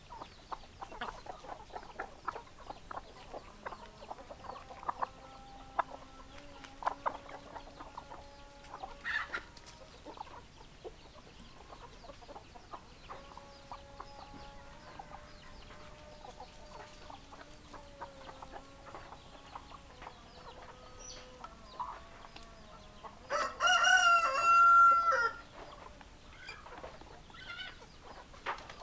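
Domestic hens clucking and making drawn-out calls throughout, with a rooster crowing once loudly about three quarters of the way through.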